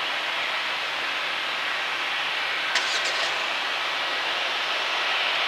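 Bombardier Global 6500's two rear-mounted Rolls-Royce Pearl 15 turbofans at taxi power: a steady jet hiss with a faint whine. A short sharp click followed by a few quick high-pitched chirps comes a little past halfway.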